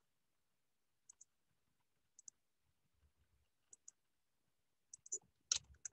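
Faint computer mouse clicks: four quick double clicks spaced about a second apart, with a short louder noise near the end.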